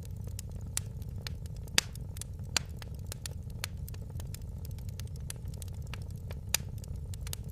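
Fire crackling in a fireplace: a steady low rumble of flames with frequent sharp pops and snaps, a few much louder pops about two seconds in, again half a second later, and near the end.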